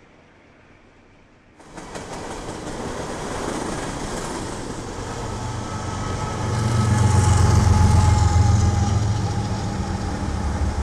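BNSF diesel locomotives leading a coal train past at track speed. Their engines' low rumble builds and is loudest as the units go by, over the steady noise of wheels on rail. It starts suddenly, under two seconds in, after a faint hiss of a train passing further off.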